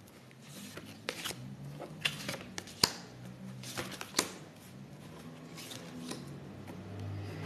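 Baralho cigano (Lenormand) cards being handled and laid out on a table: a scatter of light, sharp snaps and clicks, mostly in the first half, then quieter handling.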